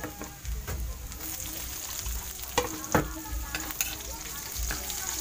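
Ginger, garlic and onions sizzling in hot oil in a wok, stirred with a metal ladle that scrapes and knocks against the pan. The sizzle grows louder about a second in as the onions go into the oil, and two sharper knocks of the ladle stand out near the middle.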